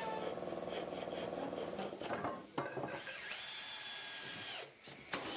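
Cordless drill working into pine frame timber, its motor spinning up, running steadily for about a second and a half and winding down past the middle. A sharp knock of wood comes just before it.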